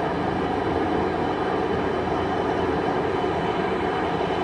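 Gas burner under a stainless-steel seafood boiler running steadily, with the water in the boiler at a rolling boil.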